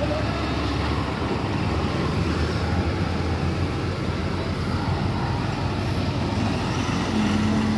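Heavy goods lorry and passenger bus engines running as the two vehicles creep slowly round a hairpin bend, a steady low rumble of traffic noise, with a brief steady hum near the end.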